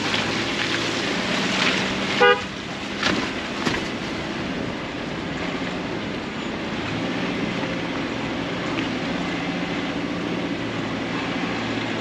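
Subaru Crosstrek running steadily on a rough track, with a short horn beep about two seconds in and a couple of knocks just after. The engine note shifts a little over halfway through.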